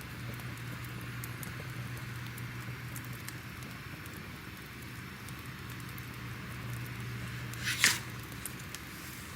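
Crackling fire: a steady soft rush with scattered small crackles and one louder snap near the end.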